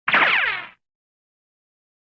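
Hanna-Barbera cartoon sound effect: a single short boing that falls in pitch, lasting under a second.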